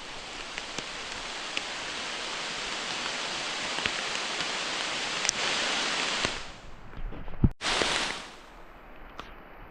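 Steady rushing noise of rain and rain-swollen running water, building over the first six seconds, with a few sharp taps of drops scattered through it. It drops away suddenly about six seconds in, returns briefly, then fades to a softer patter.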